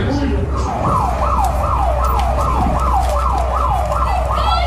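Emergency vehicle siren on a fast yelp, starting about half a second in: a repeating wail that falls in pitch on each cycle, about three times a second, over a steady low hum.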